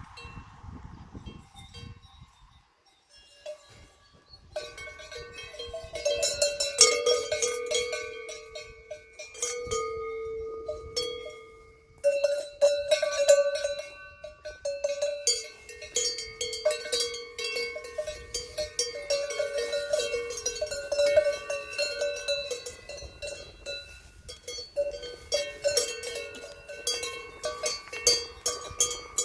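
Cowbells hung on grazing cows clanking irregularly, several bells at slightly different pitches ringing over one another as the animals move. The clanking starts about four seconds in and carries on unevenly to the end.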